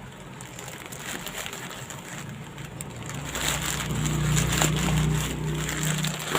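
Plastic packaging of a shipping parcel crinkling and tearing as it is pulled open by hand, growing louder through the second half. A low steady hum sits underneath from about halfway in.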